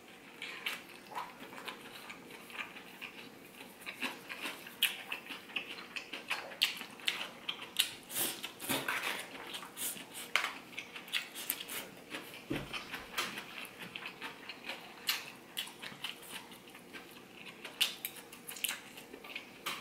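Close-miked chewing and mouth sounds of someone eating chicken, rice and gyro meat: many small wet clicks and smacks. A metal fork clinks and scrapes in an aluminium foil tray.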